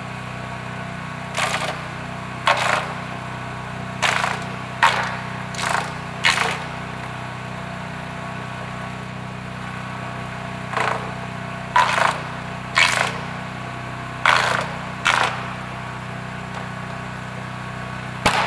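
Small gasoline engine running steadily, driving a guadua bamboo half-canoe cutting and polishing machine. About a dozen short harsh bursts as the bamboo culm is pushed into the cutter: six in quick succession, a pause, five more, and one at the end.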